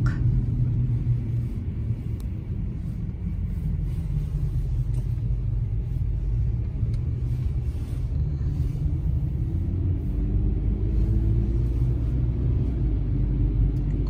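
Low, steady rumble of a car's engine and tyres heard from inside the moving cabin, with the engine note rising slightly a little past halfway through as the car gathers speed.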